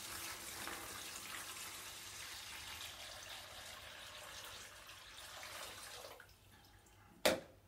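Water pouring from a plastic jug into a plastic zip-lock bag, a steady splashing hiss that fades out about six seconds in. Near the end there is one sharp knock.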